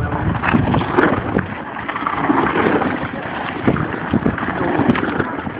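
Mountain bikes rattling and crunching over a rocky downhill trail as riders pass, with wind buffeting the microphone.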